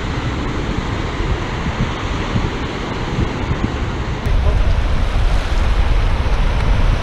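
Surf washing on the beach, with wind blowing across the microphone. About four seconds in, the low wind rumble turns suddenly louder and stays that way.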